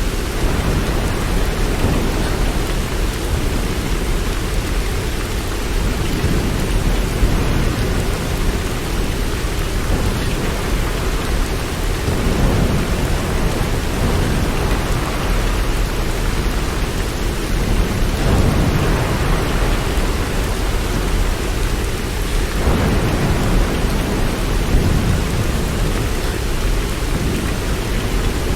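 Steady rain with low rolling thunder, the rumble swelling and fading several times.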